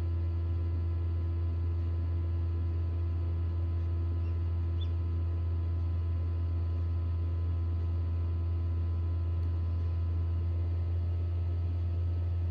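Steady low electrical hum of a Hova-Bator egg incubator running, with no change in level.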